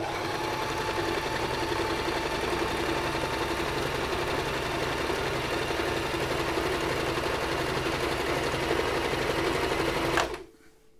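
Singer Tradition sewing machine running steadily, sewing a narrow zigzag stitch, then stopping near the end.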